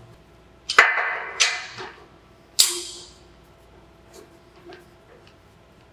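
Three clanks of steel on steel, about a second in, a moment later and near three seconds in, each leaving a brief ringing tail, as a steel beam and clamp parts are set against a steel welding table; then only a few faint taps.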